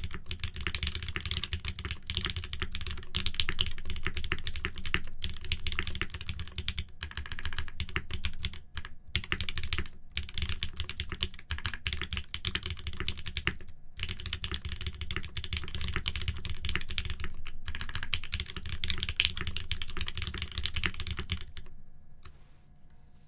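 Fast, continuous typing on an Aksara SE custom mechanical keyboard (top-mount, FR4 plate, tuned Gateron Mizu Mink switches, GMK keycaps). The keystrokes run on with a few brief pauses and die away near the end.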